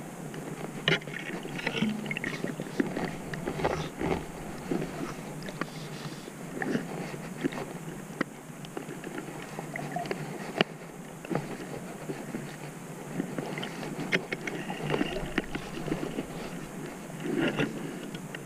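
Underwater sound picked up by a camera in its housing as a diver fins along: a muffled rush of water with many irregular clicks and knocks.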